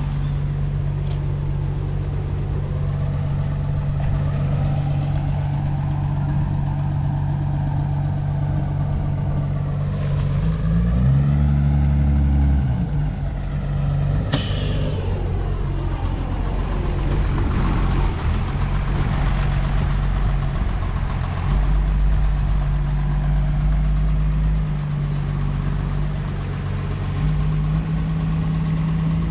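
A truck engine idling steadily. It runs up louder for a couple of seconds about eleven seconds in, and a single sharp click comes about fourteen seconds in.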